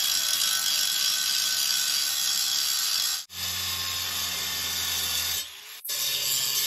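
Angle grinder with a grinding disc grinding down a steel weld seam on a propane-tank door so it will close flush: a loud, steady, high hiss of the disc on metal. The hiss breaks off sharply about three seconds in and again briefly between five and six seconds.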